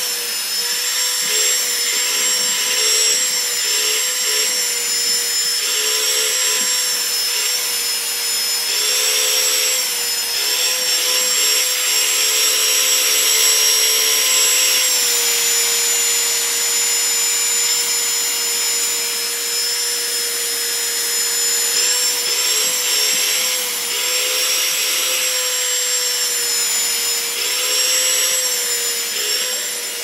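Dyson vacuum cleaner running: a steady motor whine over rushing air hiss, its pitch dropping and rising slightly every few seconds.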